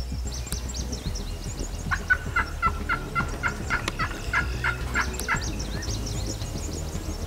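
Wild turkey calling: a run of about a dozen evenly spaced notes, some four a second, from about two seconds in until just past five seconds, with small birds chirping high above.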